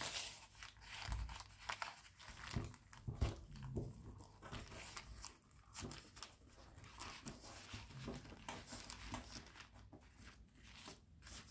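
Baking paper crinkling and rustling in irregular soft crackles as a rolled sheet of puff pastry is unrolled and smoothed flat on it.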